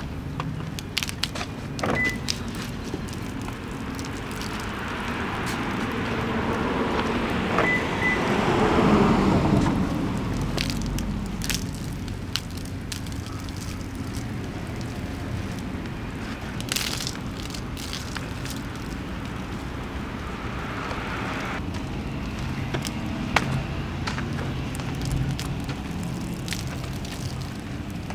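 Hand wash of a car's painted bodywork: a soapy wash mitt rubbing and sloshing over the panels, with many small scattered clicks. A louder swell of noise rises and fades about a third of the way in.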